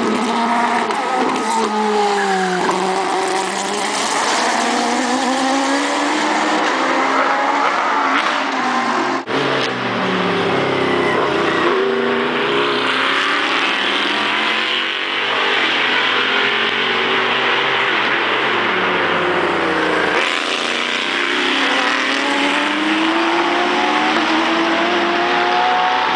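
Racing car engines at high revs, several overlapping, their pitch rising and falling with throttle and gear changes. There is a brief break in the sound about nine seconds in and another about twenty seconds in.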